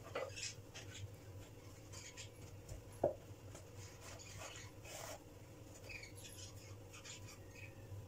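Hands kneading soft dough in a glass bowl: faint, scattered squishing and rustling, with one sharp knock about three seconds in.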